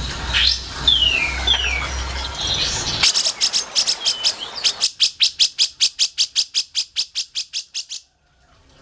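Songbird calls: a few quick descending whistles, then a fast, even run of sharp chipping notes, about six a second, that stops suddenly near the end.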